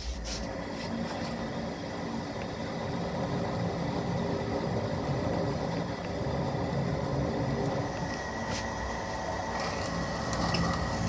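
Metal lathe running steadily, its motor and gearing giving a steady whine, while the tool cuts a spinning metal part and then a drill bit bores into it. A few short clicks sound near the end.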